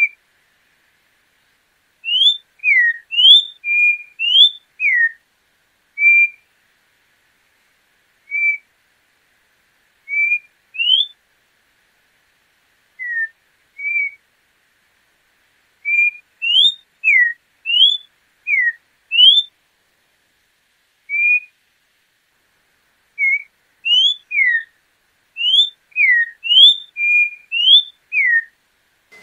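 Orange-backed troupial (João-pinto) singing: loud, clear whistled notes, some sliding up, some sliding down and some held level, given in short phrases of one to six notes with pauses between them.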